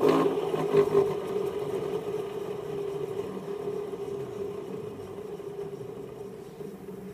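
A BZ11 Nissan Cube giving off a steady mechanical drone with a constant mid-pitched hum. It starts suddenly and slowly fades. This is the abnormal noise that the uploader puts down to a worn hub bearing.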